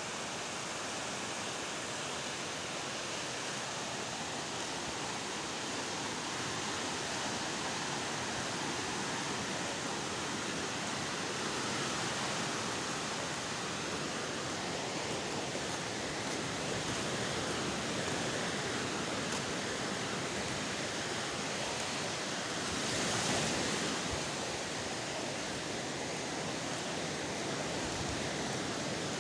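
Sea surf washing onto a sandy, rocky shore: a steady rushing wash of breaking waves that swells louder about two-thirds of the way through.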